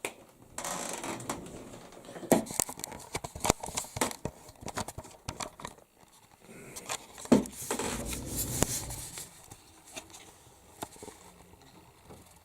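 Irregular clicks and rustling, scraping handling noise, with two louder clusters of swishes, one near the start and one about two-thirds through.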